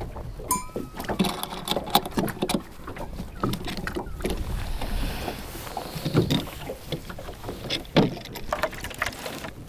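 Irregular plastic and metal clicks and knocks as a clamp-on rod holder on a small boat's gunwale is loosened, shifted and tightened, with a brief squeak about half a second in. A low rumble of wind and water runs underneath.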